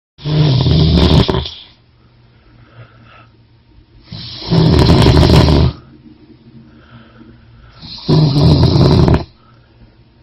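Loud snoring: three long snores about four seconds apart, each lasting about a second and a half, with soft breaths between them.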